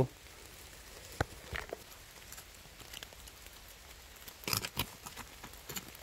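Gloved hands scraping and pulling at wet soil and leaf litter to dig out a wild ginseng root: a few short, scattered scrapes and crackles, the loudest cluster about four and a half seconds in, over faint rain patter.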